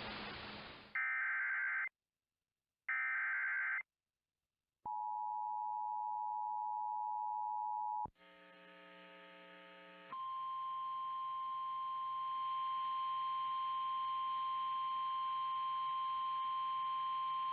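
Emergency alert broadcast tones. After a second of radio hiss come two one-second bursts of warbling SAME digital header data, then the two-tone EAS attention signal for about three seconds. After a quieter couple of seconds, the steady NOAA Weather Radio 1050 Hz warning alarm tone begins about ten seconds in and runs on; it signals that a warning message is about to follow.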